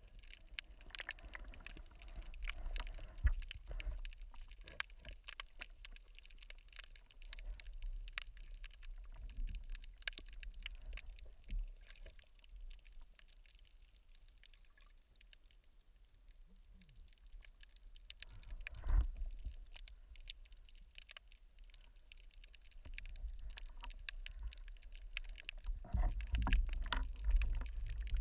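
Underwater sound heard through a diver's camera: a dense crackle of small clicks over a low water rumble. There are louder gurgling swells of moving water about two-thirds of the way through and again near the end.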